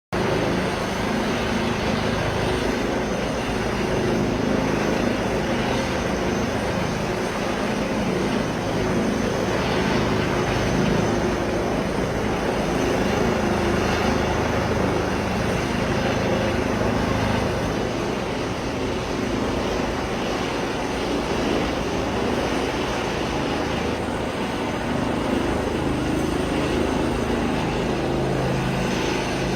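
Steady, continuous engine drone with a low hum that holds throughout, the kind heard near a running aircraft or ship engine.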